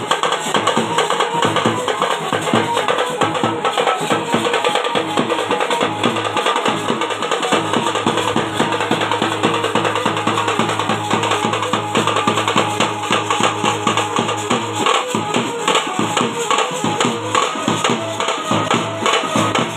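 A live village band playing: side-slung drums and a large bass drum beat a fast, dense rhythm over a sustained melody that is amplified through a horn loudspeaker. A steady low drone sits under the music for several seconds midway through.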